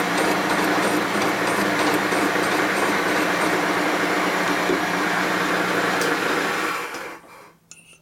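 Milling machine running steadily as its cutter takes a pass on the aluminum cylinder head of a Harley shovelhead, a loud motor whir with cutting noise over it. It stops about seven seconds in.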